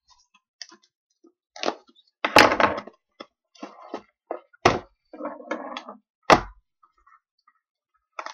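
Trading card packaging being handled and opened by hand, with a handful of separate thuds and knocks; the loudest come about two and a half and six and a half seconds in.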